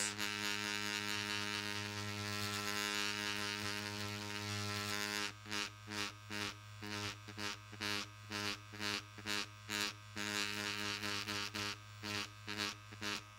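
Cartridge tattoo machine with a thin liner needle running against cased leather as it is worked in little circles. It makes a steady pitched buzz for about five seconds, then the buzz pulses about twice a second until it stops near the end.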